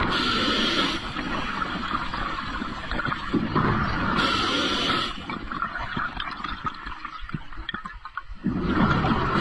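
Underwater noise of water rushing and gurgling around the camera, with a louder surge at the start, about four seconds in and again at the end.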